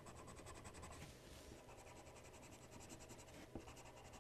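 Faint scratching of a coloured pencil on paper in quick, even back-and-forth strokes as the hooves of a goat drawing are shaded in.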